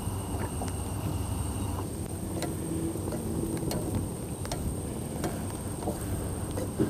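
Egg and bread frying in butter in a small pan on a portable gas-canister stove: scattered crackling pops, over a steady low hum.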